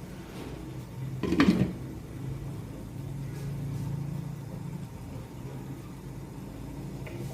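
A steady low mechanical hum, with one short clatter about a second and a half in.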